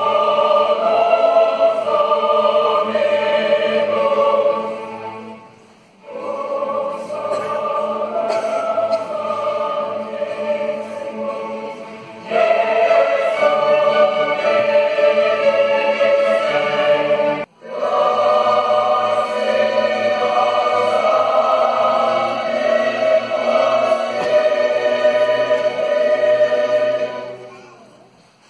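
Mixed choir singing classical music with a symphony orchestra. The phrases pause briefly about five seconds in and again at about seventeen seconds, and the sound fades out near the end.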